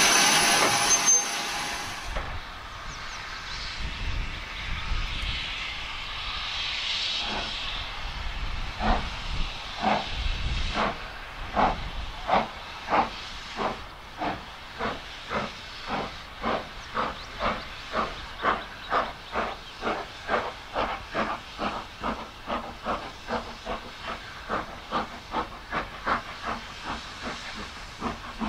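Hunslet saddle-tank steam locomotive pulling away with its train. A loud hiss at first, then steady hissing from the open cylinder drain cocks under sharp exhaust beats that begin slowly about nine seconds in and quicken to about two a second as she gathers speed.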